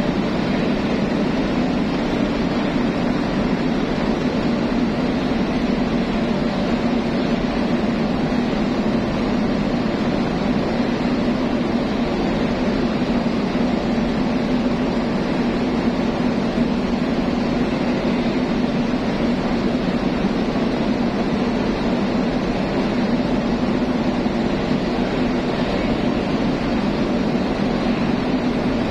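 Ship's machinery droning steadily in an enclosed vehicle deck: a low hum with an even hiss above it, with no distinct knocks or changes.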